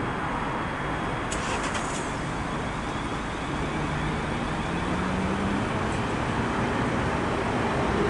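A Class 444 Desiro electric multiple unit, two units coupled, accelerating away past the platform: a steady rumble of wheels on rail, with a few sharp clicks a little over a second in. About halfway through, a low whine from the traction equipment rises in pitch as the train gathers speed, and the noise grows slowly louder towards the end.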